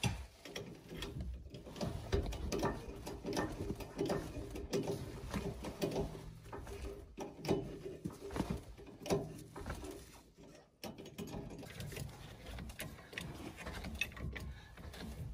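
Irregular light clicks, knocks and scrapes of a mobile-home wheel being worked onto its axle hub by hand.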